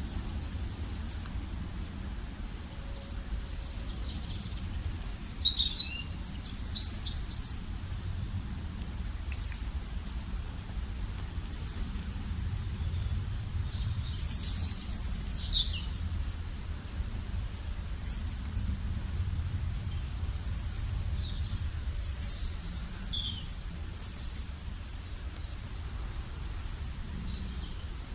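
Small birds chirping in short, high calls that come in clusters, loudest about 6, 14 and 22 seconds in, over a steady low rumble.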